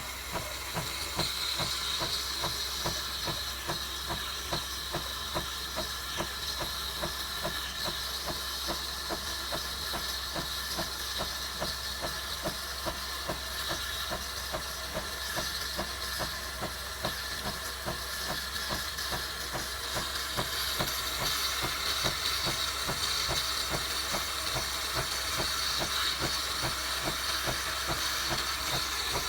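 De'Longhi Eletta Explore espresso machine frothing milk: a steady steam hiss over the fast, even pulsing of its pump and a low hum.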